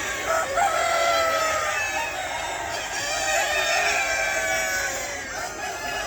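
A flock of chickens, with several roosters crowing at once in overlapping long calls over general clucking.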